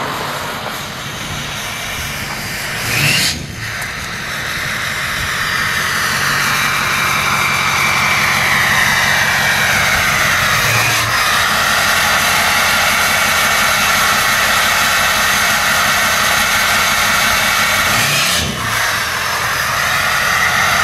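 Ford 6.0L Power Stroke V8 turbodiesel with a Garrett VGT turbo, running through a 4-inch straight-pipe exhaust. The turbo's high whine is plain over the diesel's low rumble. The whine slides down in pitch about midway and then holds steady.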